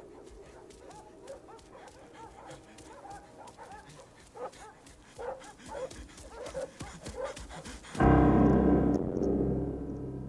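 A dog whimpering and yipping in a string of short cries that rise and fall. About eight seconds in, a loud held keyboard chord strikes suddenly and slowly fades.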